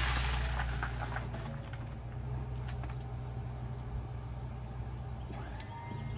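Dirt sliding off a raised dump bed onto a pile, the rush tailing off after about a second into a few scattered clods dropping, over a steady low hum from the truck. A rising tone comes in near the end.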